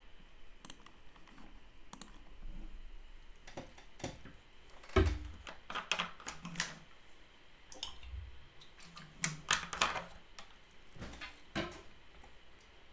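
Irregular computer keyboard keystrokes and mouse clicks, with a louder, duller thump about five seconds in.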